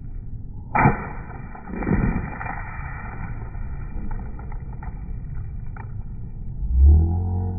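A sledgehammer strikes a plastic water bottle: a sharp thud, a second heavier hit about a second later, then rushing, splashing noise with scattered small clicks. Near the end a low steady musical hum begins.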